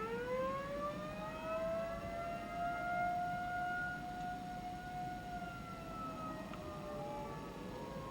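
Outdoor civil defense warning siren winding up, its pitch climbing steeply and then holding a steady tone. Near the end the tone sags a little while another siren tone rises.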